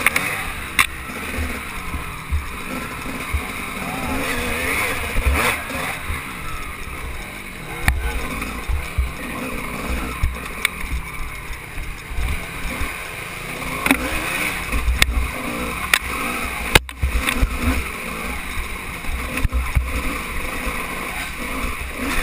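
Off-road motorcycle engine revving up and down as the bike is ridden over a rough dirt trail, with sharp knocks from the bumps every few seconds.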